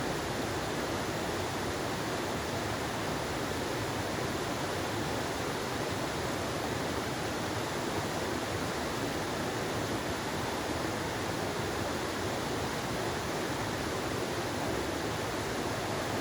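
Stream water running steadily: an even, unbroken rushing hiss.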